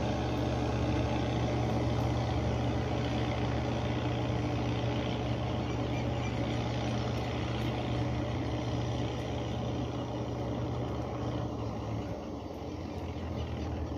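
Heavy vehicle engine running steadily at a constant speed. About twelve seconds in, its low hum drops in pitch and gets a little quieter.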